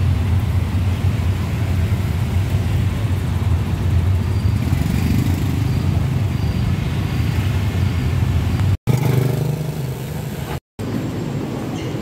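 Steady low rumble of road and engine noise heard inside a moving car, a taxi. It drops out twice briefly near the end.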